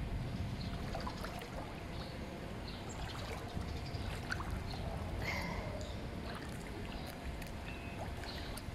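Swimming-pool water splashing and lapping, over a steady low rumble, with small scattered clicks and faint distant high sounds.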